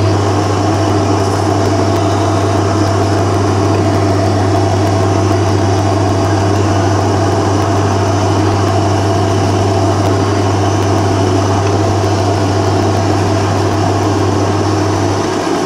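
Vacuum cleaner running steadily, hooked to the hose port of a wooden downdraft sanding box and pulling air down through its slatted top. A low hum in the sound drops away near the end.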